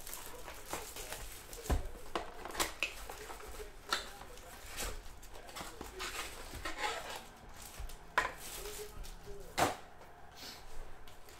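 Plastic-wrapped trading-card box and foil packs being handled and unwrapped: crinkling wrapper with scattered sharp clicks and taps, the loudest about eight and nine and a half seconds in.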